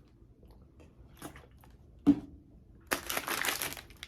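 Food packaging being handled: a single sharp knock about two seconds in, then dense crinkling of the wrapper from about three seconds.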